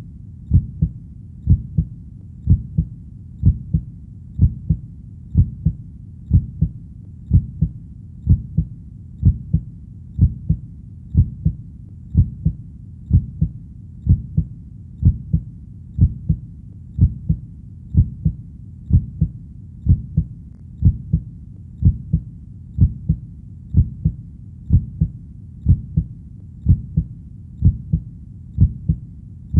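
Heartbeat: steady, low double thumps (lub-dub), about one beat a second, over a faint continuous low background rumble.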